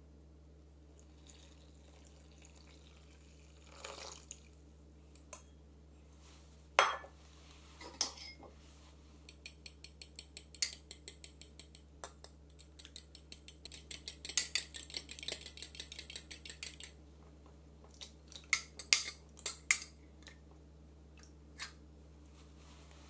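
Kitchen bowls and utensils: stainless steel and glass mixing bowls knocked and set down, with runs of quick light clinks, about five a second, in two spells near the middle, over a faint steady hum.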